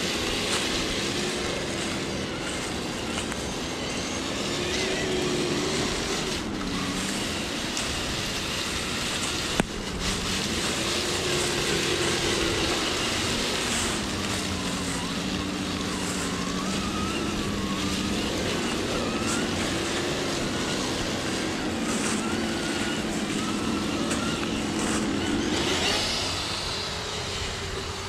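Axial SCX10 III 1/10-scale RC crawler's brushless motor and geared drivetrain whining, the pitch rising and falling as the throttle is worked. There is one sharp knock about ten seconds in.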